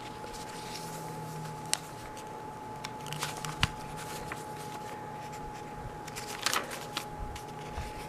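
Paper pages and tags of a handmade junk journal rustling and sliding as they are turned by hand, with a few short sharp ticks of paper and card knocking together, over a faint steady hum.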